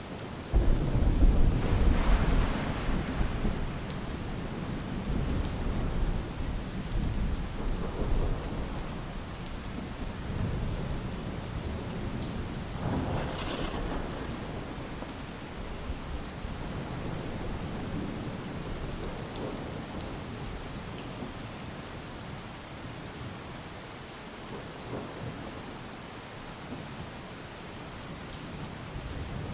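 Steady rain falling, with rolling thunder: a loud low rumble about half a second in that slowly fades, another rumble around the middle, and thunder building again at the very end.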